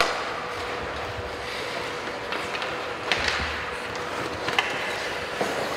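Ice hockey play in an indoor rink: skate blades scraping and carving on the ice under a steady arena hubbub, with a few sharp clacks of sticks and puck, one at the very start, one about three seconds in and another about four and a half seconds in.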